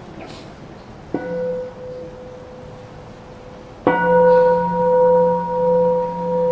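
Buddhist bowl bell invited twice: a light first touch about a second in that dies away quickly, then a full strike near the four-second mark that rings on with a slowly pulsing hum. In Plum Village practice the light touch wakes the bell and the full sound is the signal to stop and breathe mindfully.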